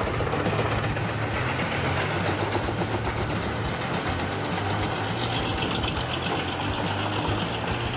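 Wood chipper's engine running steadily, with a brighter hiss added about five seconds in.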